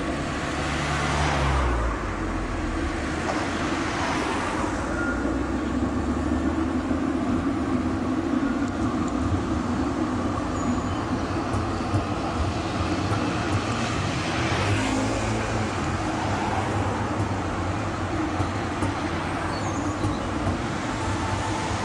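Street traffic noise: a car drives past in the first couple of seconds, and Tram 2000 articulated trams run past on the rails with steady wheel and motor noise.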